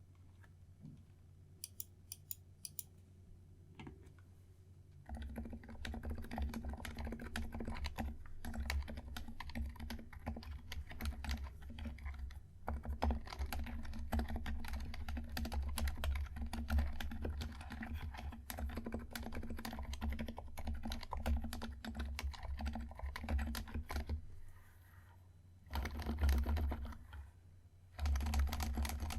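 Typing on a Keychron K2 mechanical keyboard with Durock Daybreak switches and OSA-profile keycaps, dampened for quieter keystrokes. A few scattered key presses open it, then steady continuous typing follows, breaking off for a moment before two short bursts near the end.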